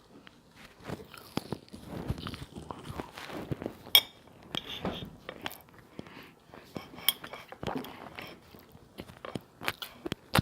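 Close-up eating sounds: a person biting and chewing food, with irregular wet smacks and crunches and two sharp, louder clicks about four and seven seconds in.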